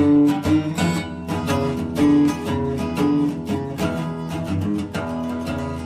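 Background music of acoustic guitar, quick plucked and strummed notes.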